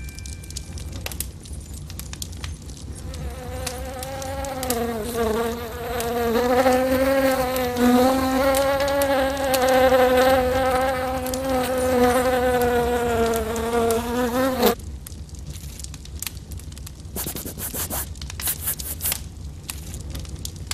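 A fly buzzing in flight. The buzz wavers a little in pitch, starts a few seconds in and cuts off suddenly about two-thirds of the way through. Light crackling clicks can be heard around it.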